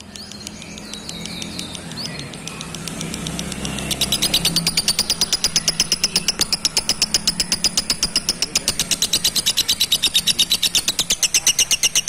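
Blue-masked lovebird singing: a few scattered chirps, then from about four seconds in a rapid, even run of chirps that keeps going and grows a little louder near the end.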